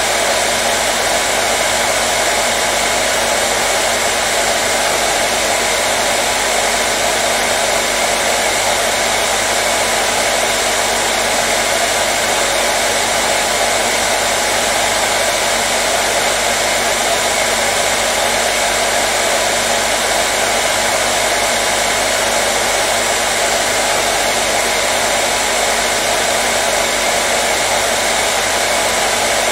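Hairdryer running steadily: an unbroken, even blowing roar with a faint motor hum underneath, played as white noise to soothe a colicky baby.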